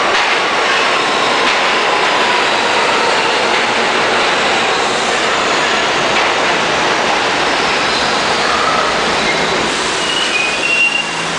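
New York City subway train running into an underground station: steady, loud rumble and rattle of steel wheels on the rails, with faint wheel squeal throughout and a few short, higher squeals about ten seconds in.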